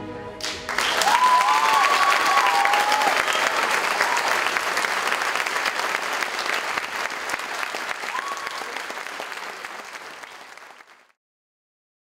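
The music stops within the first half-second and a theatre audience breaks into loud applause, which fades out near the end.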